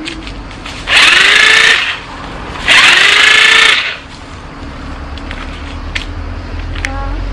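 Handheld corded electric saw switched on twice in short bursts of about a second each, the motor spinning up with a rising whine and then cutting off.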